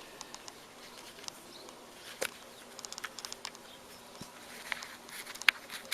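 Light handling noises: scattered small clicks and rustles as replacement turntable drive belts are sorted from their bags, with a quick run of ticks about three seconds in and a sharper click near the end. A faint steady hum sits underneath.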